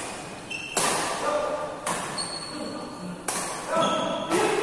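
Badminton rackets striking a shuttlecock in a doubles rally: four sharp hits about a second apart, echoing in a large hall, with short high squeaks of shoes on the court floor between them.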